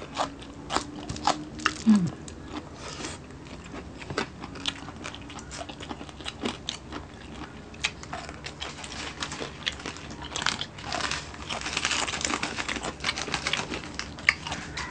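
Close-miked eating: biting into and chewing okra and other food, with many short, sharp crunches and mouth clicks, thickest about ten to thirteen seconds in.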